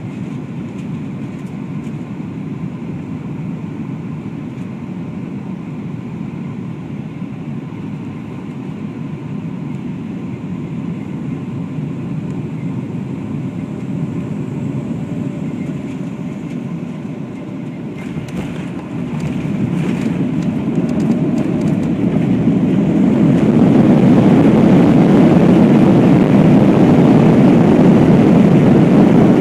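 Cabin noise of a Boeing 737-700 with CFM56 jet engines, steady engine and airflow noise on the landing approach. About eighteen seconds in come a few knocks and rattles of touchdown. The noise then rises over several seconds to a loud steady rush as the engines spool up, typical of reverse thrust during the landing roll.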